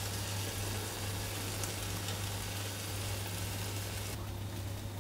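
Lavash-and-egg omelette sizzling gently in a non-stick frying pan on very low heat, a steady hiss that drops away about four seconds in. A low steady hum runs underneath.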